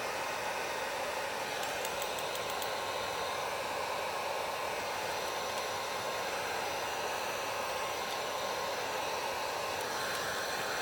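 Heat gun blowing steadily, warming vinyl tint film to make it pliable and take out a crease.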